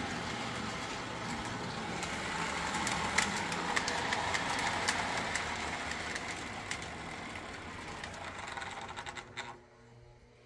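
Postwar Lionel O gauge train with a Pullmor motor running on three-rail track, wheels clicking on the rails. It slows as the Variac voltage is turned down and stops about nine and a half seconds in, at around 7 volts, leaving a faint mains hum.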